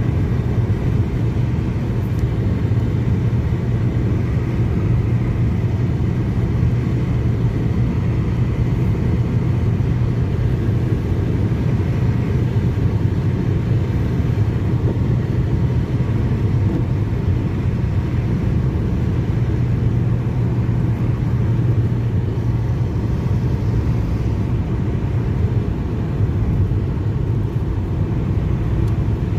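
A car driving at steady speed: a constant low rumble of engine and tyre noise that never swells or fades.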